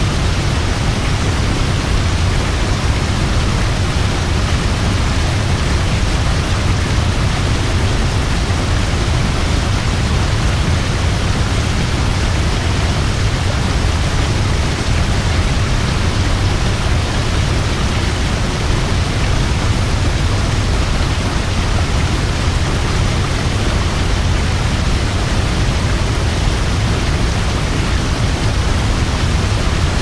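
Large waterfall plunging over a cliff into a river: a loud, steady roar of falling water, heaviest in the deep low end.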